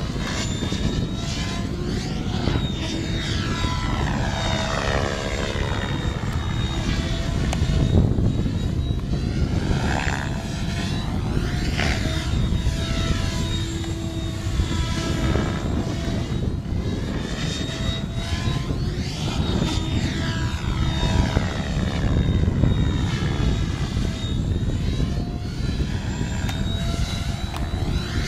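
Radio-controlled model helicopter flying manoeuvres at a distance, its rotor and motor whine sliding up and down in pitch over and over as it moves about the sky, over a steady low rumble.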